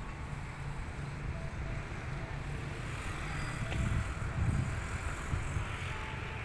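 Street ambience from an open town square: a steady hum of distant road traffic, with wind rumbling on the microphone.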